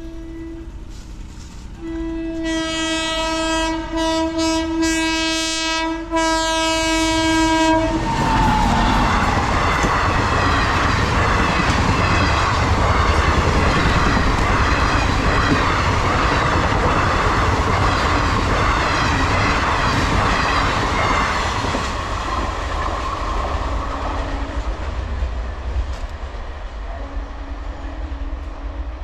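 Passenger train sounding its horn, a short blast and then a long one of about six seconds whose pitch drops as it reaches the camera. It then runs past at speed with loud wheel and carriage noise that slowly fades over the last several seconds.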